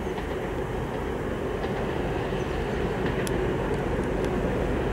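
2M62 twin-section diesel locomotive running light, its two-stroke V12 diesel engines running with a steady rumble that grows slowly louder as it approaches.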